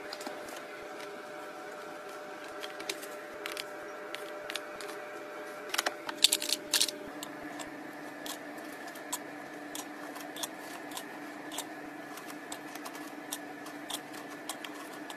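Light clicks and taps of small objects being handled over a steady hum, with a quick cluster of louder clacks about six seconds in. In the later part, tongs lifting sugar cubes and setting them into a stainless steel bowl, with sparse light clicks.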